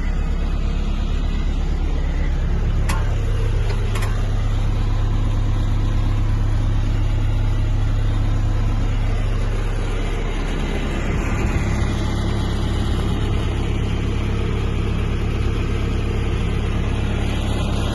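Volvo BL70 backhoe loader's diesel engine running steadily. It picks up revs about two seconds in and settles back down near ten seconds, with two sharp clicks at about three and four seconds.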